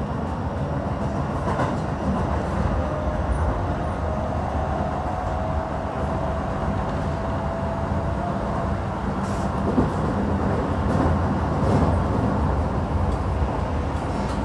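Keisei electric commuter train running, heard from inside the car: a steady rumble of wheels on rail with a few clicks over rail joints in the second half, and a faint steady whine from about four to nine seconds in.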